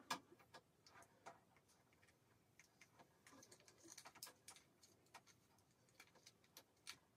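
Faint, irregular small clicks and light rustling as a 1-inch curling iron is handled and hair is wound around its barrel.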